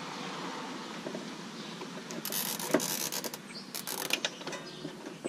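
Nylon zip ties being pulled through their locking heads: two quick runs of ratcheting clicks, one a little past two seconds in and a shorter one around four seconds.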